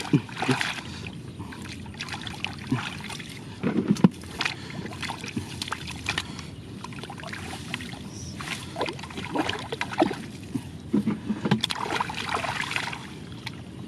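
Shallow rice-field water sloshing and splashing irregularly as hands work through it catching catfish, with scattered sharper splashes.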